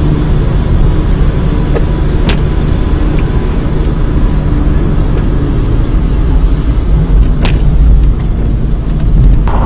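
Steady low rumble of a car driving, heard from inside the cabin, with two brief sharp clicks about two seconds in and about seven and a half seconds in.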